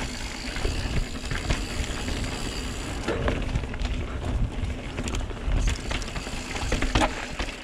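Santa Cruz Megatower full-suspension mountain bike rolling fast down a dirt singletrack: steady tyre noise on packed dirt and gravel, with occasional knocks and rattles from the bike over bumps and a low wind rumble on the camera's microphone.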